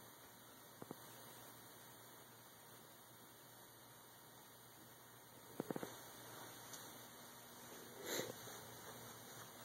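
Near silence: faint steady hum and hiss of room tone, broken by a few soft clicks about a second in and past halfway, and a brief rustle near the end.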